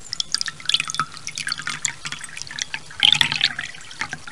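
Water drops falling into water: an irregular patter of small plinks and splashes, busiest about three seconds in.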